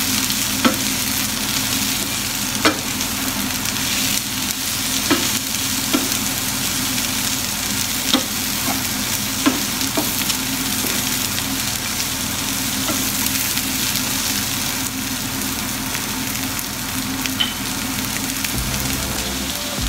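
Vegetables sizzling in a hot frying pan as they are stirred and tossed with a slotted wooden spatula, which knocks against the pan several times, mostly in the first half.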